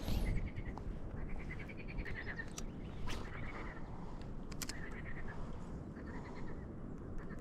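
Short animal calls repeated about once a second, each a quick pulsed note, over a steady low rumble of wind on the microphone, with a couple of faint clicks.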